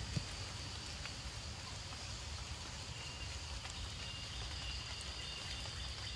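Forest ambience: a steady high insect drone, joined by a second, slightly lower insect tone about halfway through, over a low rumble. A short knock sounds just after the start.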